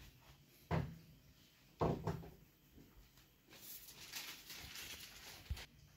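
Household handling sounds: two knocks about a second apart, then a few seconds of rustling with a soft thud near the end, like cupboard or drawer doors and things being moved about.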